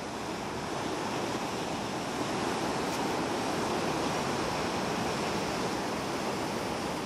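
Ocean surf washing over rocks, a steady rushing.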